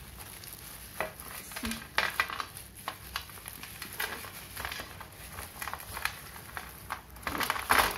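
Thin plastic bag crinkling as it is handled, with small hard pieces of broken slate clicking and clattering onto a steel plate; a louder burst of rustling and clatter near the end.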